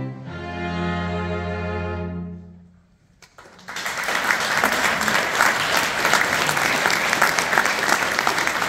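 A string ensemble of violins and cello holds a final chord that fades away about two and a half seconds in. After a moment of near silence, the audience starts applauding and keeps clapping steadily.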